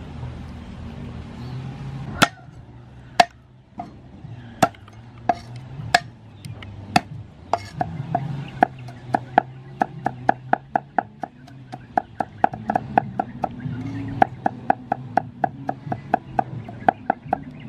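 Steel cleaver chopping garlic on a round wooden chopping block. The sharp chops begin about two seconds in, spaced about a second apart, then quicken to about three a second.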